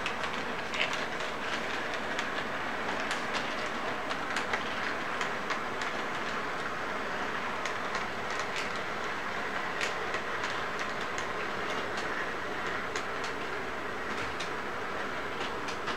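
Model intermodal train running past on its track: a steady electric whir and rumble with irregular light clicks from the wheels and cars.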